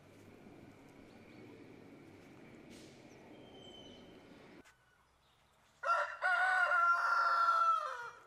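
A rooster crows once, a loud call about two seconds long that starts about six seconds in and drops in pitch at the end, over faint outdoor background noise.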